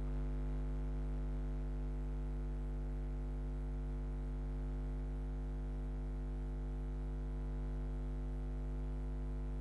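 Steady electrical hum: a low buzz with a ladder of overtones, unchanging throughout.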